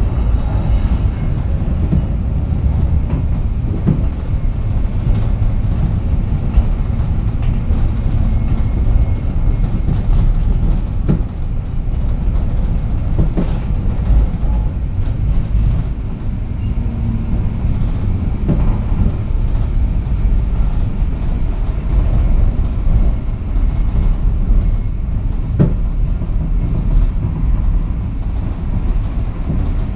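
Moderus Beta MF15 AC tram running along the track: a steady low rumble of wheels and running gear, with a few separate clicks from the wheels over the rails.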